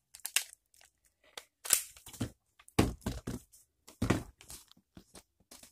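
Hands handling a small action camera and its plastic case: scattered rustling and clicking of plastic parts, with two heavier bumps about three and four seconds in.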